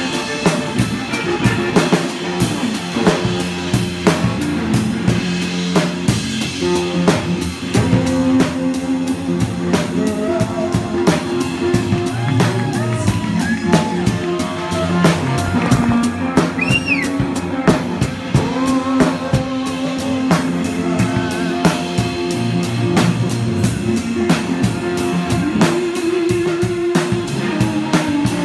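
Live rock band playing: a drum kit played busily with rapid strokes and cymbals, over sustained low bass and keyboard notes, with gliding electric guitar lines on top.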